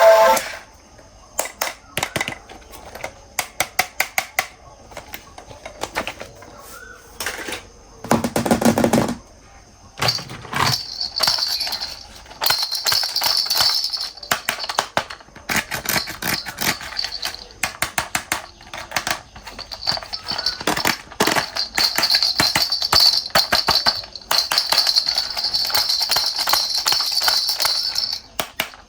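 Plastic toy vehicles being handled and cleaned: many short clicks and knocks of plastic, with a louder rushing burst about eight seconds in and long stretches of steady hissing from about ten seconds on.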